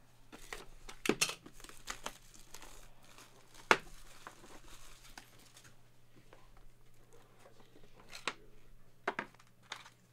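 Cardboard card box being opened and handled: crinkling and tearing as its seal is pulled, with scattered sharp taps and clicks as the lid, foam insert and cards are moved. The loudest click comes a little before four seconds in.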